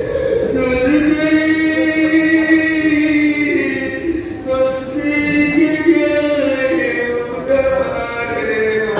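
A man's voice chanting an Arabic supplication (dua) in long, drawn-out melodic phrases, two held phrases with a short break between them.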